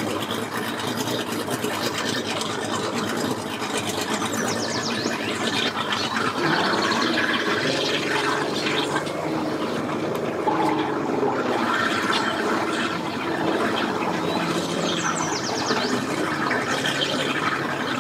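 Bass boat's outboard motor running at low speed in reverse, its propeller churning the water as the boat backs off its trailer. A steady low engine hum that firms up about six seconds in.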